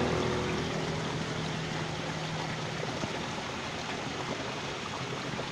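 Steady rush of a small stream's flowing water, with a faint low hum that fades out in the first few seconds.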